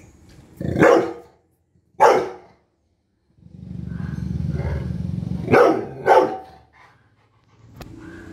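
Nine-month-old Rottweiler barking: two sharp barks, then a low growl lasting about two seconds, then two more barks in quick succession.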